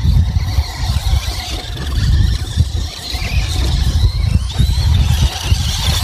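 Electric motors of two RC trucks, a Traxxas Stampede and an Axial SCX10 Deadbolt, whining at speed on loose dirt, with the whine rising about four and a half seconds in, over a heavy low rumble of wind on the microphone.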